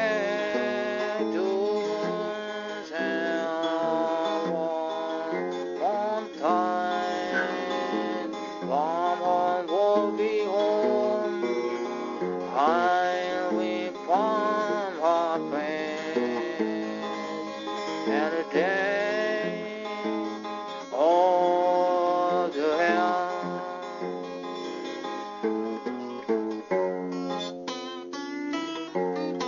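Music led by plucked and strummed acoustic guitar, with some gliding, bent notes.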